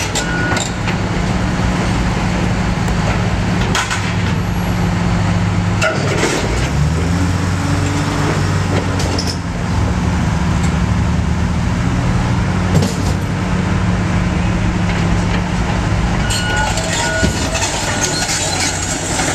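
Heavy tracked excavator's diesel engine working steadily under load, its note shifting about six seconds in and again near the end, with scattered knocks and clanks from demolition debris.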